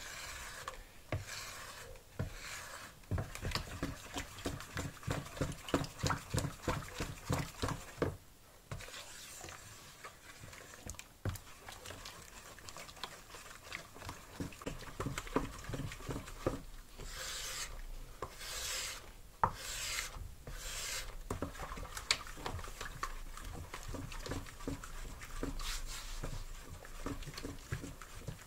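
Wooden spatula stirring soapy liquid in a plastic basin, scraping and swishing against the bowl in repeated rhythmic strokes, with a few louder swishes past the middle.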